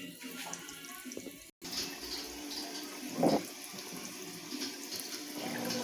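Water running and sloshing inside a Consul CWS 12 washing machine, with one louder knock about three seconds in.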